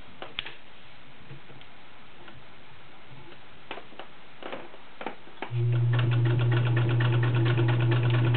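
A few light clicks as the denim is set under the presser foot. About five and a half seconds in, the Riccar RZ-415B's all-steel zigzag sewing machine starts and stitches steadily through five layers of denim: a steady motor hum with a rapid, even ticking of the needle mechanism.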